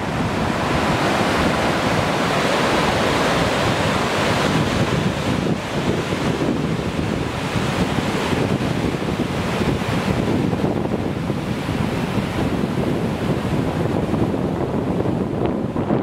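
Mountain creek whitewater rushing down a series of rocky cascades, a steady loud roar.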